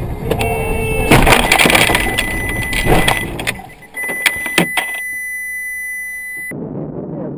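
Car collision heard from inside the car through a dashcam: a loud impact about a second in, followed by a few seconds of crunching and knocking as the car slides into the side of a white SUV. Then a few sharp clicks and a steady high-pitched tone.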